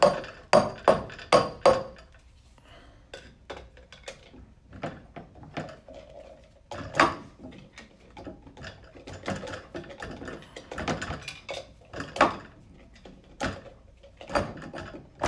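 Metal clicks and knocks as a tool on a CVT pulley shaft is worked by hand to seat the pulley bearing into the transmission case. A quick run of about five sharp clicks at the start, then scattered knocks and clinks.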